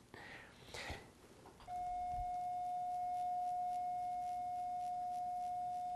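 Ellman radiofrequency surgical unit sounding its steady activation tone, a single held beep that starts a little under two seconds in, while the wire-loop electrode is energised on the skin.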